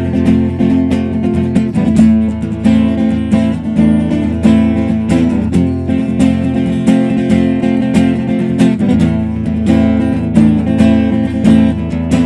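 Acoustic guitar strumming chords in a steady rhythm, an instrumental passage between sung verses.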